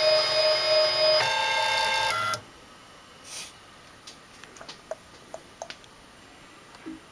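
Ultimaker 3D printer's stepper motors whining in steady multi-tone hums that jump to new pitches about a second in and again near two seconds as the head and bed move. The motors stop at about two and a half seconds, leaving only faint scattered clicks.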